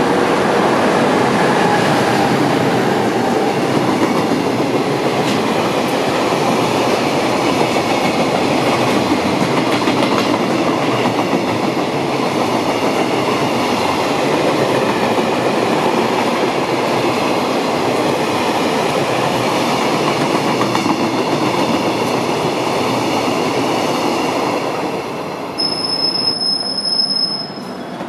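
A long container freight train hauled by an electric locomotive passing close by at speed: a steady, loud rumble and clatter of wheels on the rails. About two seconds before the end it cuts abruptly to a quieter sound with a thin high steady tone.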